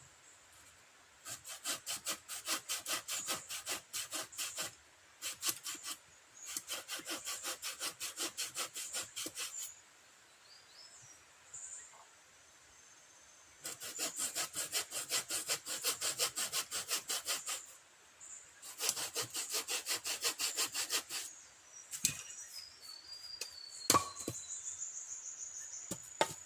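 Hand tool working wood in fast, even back-and-forth strokes, in several bursts of a few seconds each with short pauses between.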